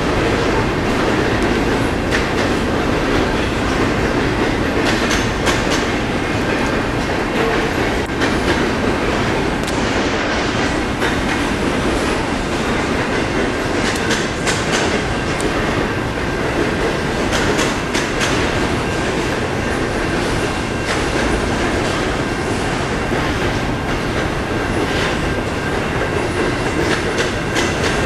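CN double-stack intermodal freight train rolling steadily past. A continuous rumble is broken by irregular clicks and clanks of the wheels over the rail joints, with a faint steady high tone above it.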